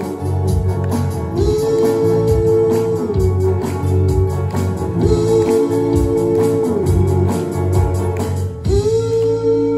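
Small live band playing a folk-rock song on electric guitar, electric bass and acoustic guitar, with a steady low bass line. Long held notes, each bending up into pitch, come about every three and a half seconds.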